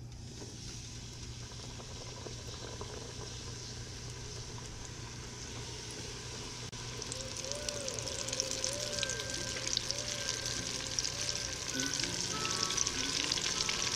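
Flour-dredged gar meat sizzling in hot oil as the pieces are lowered in one after another, with a dense crackle that grows louder and busier about halfway through.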